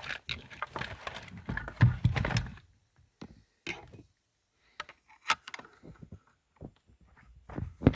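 Screwdriver prying at the knee-airbag connector plug under the dashboard: a couple of seconds of clattering and rustling of plastic and wiring, then scattered sharp plastic clicks and knocks as the plug is worked loose.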